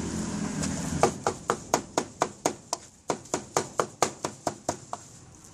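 A cleaver chopping cooked pork head meat (snout, tongue, ear, cheek) on a chopping block for tacos. It strikes rapidly and evenly, about four chops a second, starting about a second in and stopping about a second before the end.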